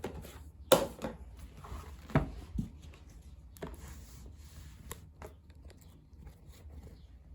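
Handling of a K-pop album's packaging and inserts: a few sharp knocks and taps of cardboard and plastic, with brief paper rustling between them.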